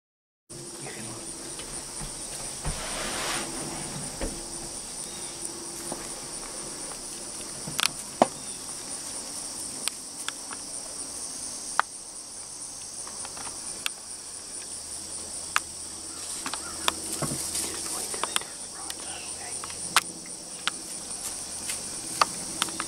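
A steady, high-pitched chorus of insects, with a few sharp clicks and snaps scattered through it.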